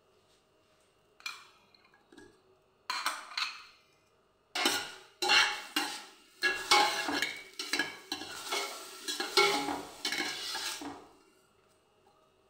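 Metal slotted spoon stirring chopped onions and peppers in a stainless-steel pot, scraping and clinking against the metal. A few separate knocks come first, then steady stirring from about four seconds in, stopping about a second before the end.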